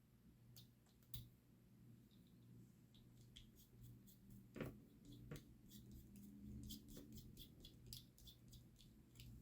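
Faint, scattered light clicks and ticks of small RC parts and hand tools being handled on a workbench, over a low hum, with one slightly louder knock about halfway through.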